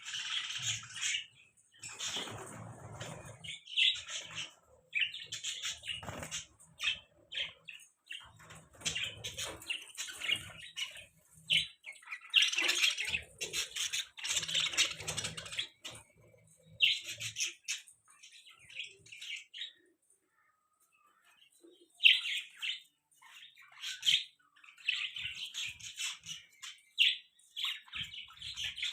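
Budgerigars (budgies) chirping and chattering in quick, busy bursts of short high notes, with a pause of a couple of seconds near the end.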